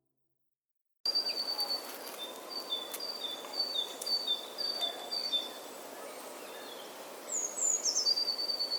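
A songbird repeating a high two-note chirp, about two pairs a second, over outdoor background noise. It starts about a second in. A different, higher falling call comes near the end.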